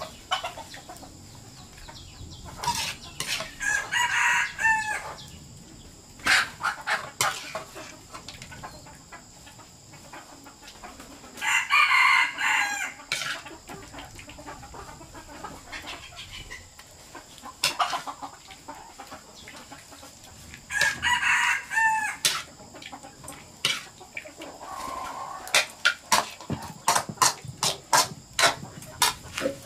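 A rooster crowing three times, each crow lasting about a second and a half, over steady high-pitched background tones. Scattered sharp knocks come between the crows and grow rapid near the end.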